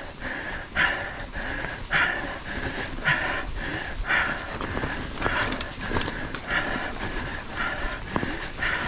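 A mountain biker breathing hard while pedalling up a steep rocky climb, with a loud breath about once a second. A few short knocks sound in the second half.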